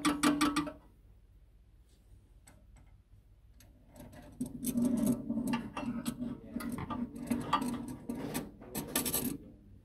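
Metal clicks and rattles as the gobo rotator module's sheet-metal mounting plate is handled and worked against the projector's brackets. A few clicks at the start, a quiet stretch, then a busy run of clicking and rattling from about four seconds in.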